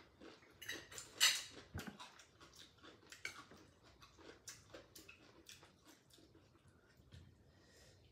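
People eating: chewing and crunching of food with light clicks of chopsticks and dishes, a string of short, sharp sounds, the loudest about a second in.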